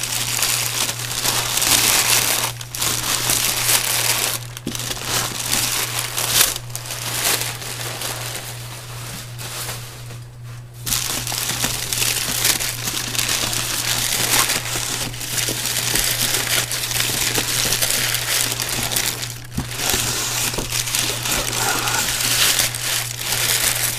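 Packing paper being crumpled and pulled out of a cardboard shipping box: long stretches of crinkling and rustling, broken by a few short pauses, the longest about ten seconds in.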